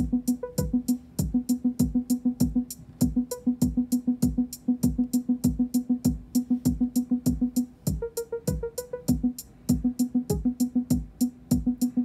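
Eurorack modular synth sequence: a kick drum and a hi-hat from the ER301 sound computer, driven by Euclidean trigger sequencers, under a rapidly repeated synth note from the Teletype note sequencer. The hi-hat ticks run evenly throughout; about eight seconds in the note jumps higher for about a second, then drops back.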